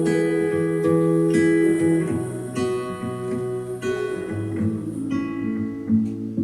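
Acoustic guitar music with strummed and plucked chords, played back through a pair of powered desktop speakers for a listening test.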